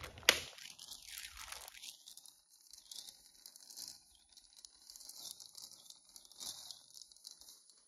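Thin plastic packaging bag crinkling and being torn open by hand, with a sharp snap about a third of a second in, then irregular crackly rustling.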